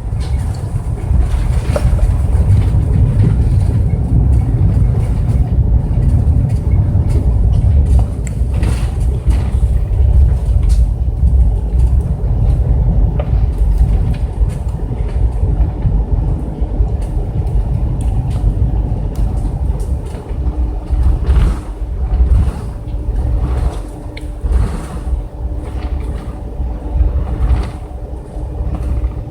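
Boeing 747-400 cabin noise on the landing rollout, heard from the upper deck: a loud low rumble from the runway and engines that eases off after about twenty seconds as the aircraft slows. Occasional knocks come through, and a steady hum joins about halfway in.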